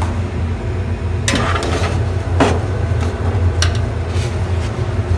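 Metal baking tray slid back onto an oven rack, with several sharp knocks and scrapes of metal on metal over a steady low hum.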